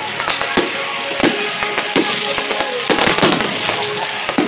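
Fireworks display: a string of sharp bangs, about half a dozen spread across a few seconds, over continuous crackling and hissing from burning shells.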